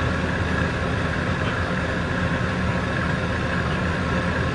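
Pickup truck engine idling steadily.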